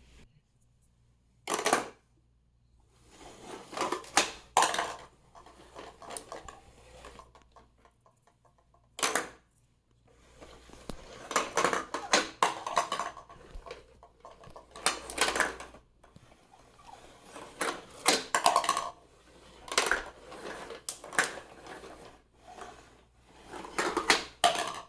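Hard plastic clicks and clatters in irregular bursts from a plastic toy bulldozer being handled, with a longer rattling run about eleven to thirteen seconds in.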